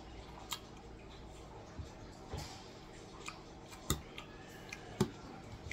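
Metal spoon clinking and scraping against a soup bowl while eating, a string of sharp clicks, the loudest about four and five seconds in.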